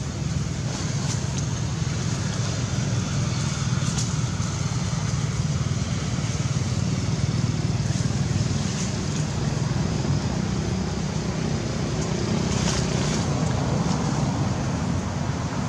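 Steady low rumbling background noise with a hiss over it and a few faint clicks. There is no distinct call or event.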